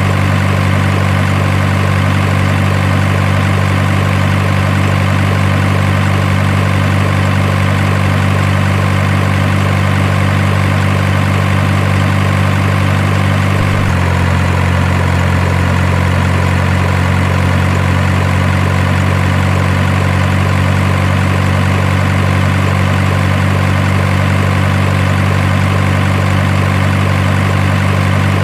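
Steady, unchanging engine idling sound, as of a heavy truck's diesel, that shifts abruptly in character about halfway through. It has the even level of a looped engine sound effect rather than the electric motors of the miniature models.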